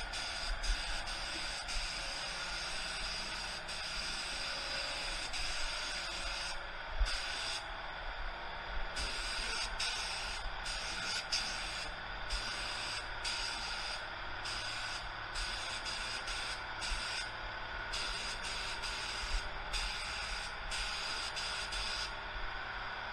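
Compressed air hissing through a gravity-feed automotive paint spray gun as paint is sprayed onto a car door. The hiss is steady at first, then from about six seconds in it breaks into repeated spurts of about a second as the trigger is pulled and released between passes.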